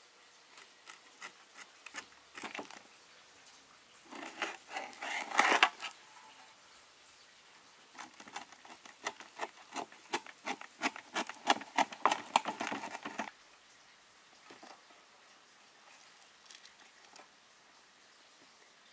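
Irregular sharp taps and clicks of hard objects being handled: a dense cluster a few seconds in, then a quicker run of taps, about three or four a second, through the middle, and only a few scattered taps near the end.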